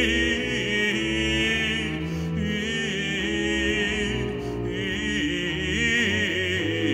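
Baroque cantata performance: a bass soloist singing a slow, drawn-out line with vibrato over sustained bowed strings.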